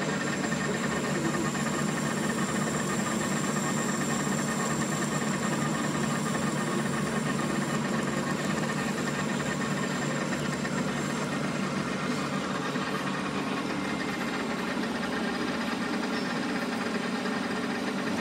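Metal lathe running steadily, turning down the weld build-up on an electric motor shaft with a cutting tool; a continuous machine hum with a thin high whine from the cut.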